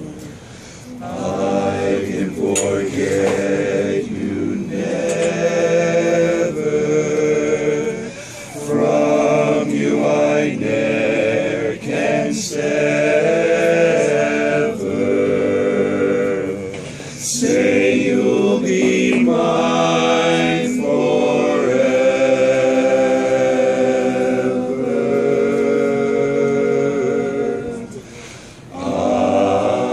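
A group of men singing barbershop harmony a cappella, several voices holding chords together, with short breaks between phrases.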